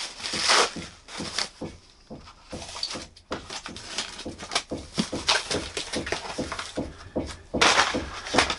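Scissors cutting into a cardboard book wrapper and plastic bubble wrap crinkling, with irregular snips, clicks and rustles, and a louder rustle near the end.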